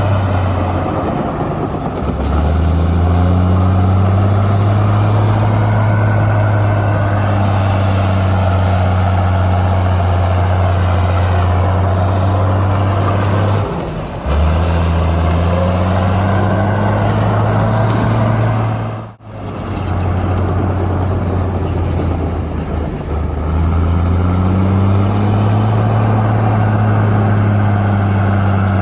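Heavy earthmoving machine's diesel engine running, its note dipping and climbing back up several times as the load changes. The sound breaks briefly about halfway and cuts out abruptly for a moment about two-thirds of the way in.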